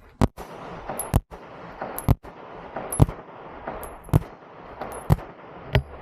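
A 9mm gun fired as single shots at a shooting range, about seven sharp cracks roughly a second apart.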